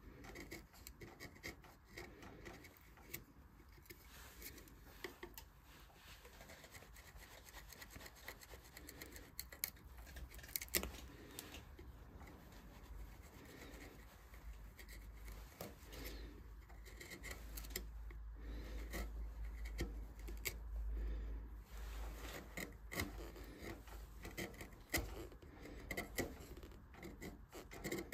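Hand carving tools cutting and scraping wood in short strokes with many small sharp clicks, carving a relief into a turned wooden vase. A low rumble comes in for several seconds midway.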